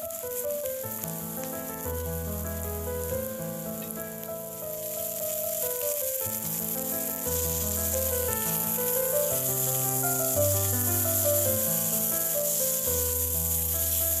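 Background music with a melody over a bass line, with food sizzling as it fries in oil in a pan underneath. The sizzle grows louder about five seconds in.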